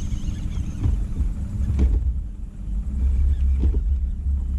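Low, uneven rumble of wind buffeting the microphone, with a brief lull a little past two seconds in and a couple of faint knocks.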